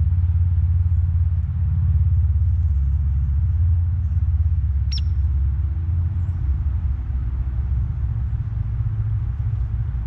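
Steady low rumble that rises and falls a little, with one short high chirp from a bird about halfway through.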